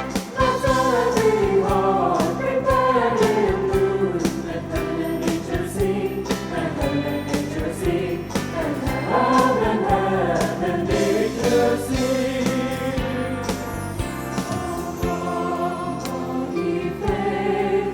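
A high school choir singing with musical accompaniment, with many sharp percussive strikes running through it.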